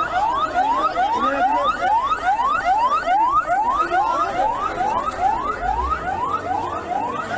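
Electronic siren sounding a fast rising sweep that drops back and repeats about three times a second, typical of an emergency vehicle's yelp tone.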